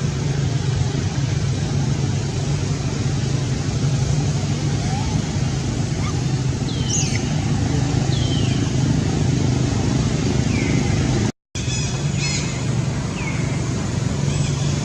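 A steady low motor hum, like an engine running, with a few short, high, falling chirps over it. The sound cuts out completely for a moment about eleven seconds in.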